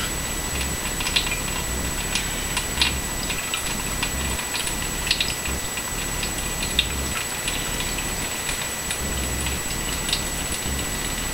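Water running from a faucet in a thin steady stream, with small irregular splashes and drips. Partway through, the stream falls onto a strip of wood held under the tap.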